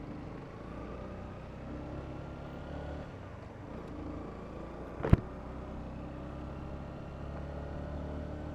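Honda CBR125's single-cylinder engine running steadily on the move, its pitch climbing gently between about one and three seconds in. A single sharp knock about five seconds in.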